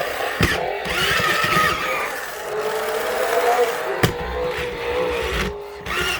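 Toy Batmobile's built-in speaker playing its electronic jet-turbine engine effect: a noisy rush with a wavering whine that starts higher and settles lower, broken by two sharp clicks, one just after the start and one about four seconds in.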